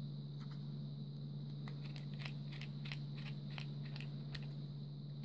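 Small Phillips screwdriver turning in the flame-adjustment screw of a plastic butane torch lighter: a string of small clicks and scrapes, thickest from just under two seconds in to past four seconds. A steady low hum runs underneath.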